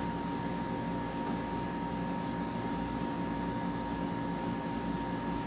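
Steady machine hum with a faint constant high whine, even in level throughout, with no knocks or tool clatter.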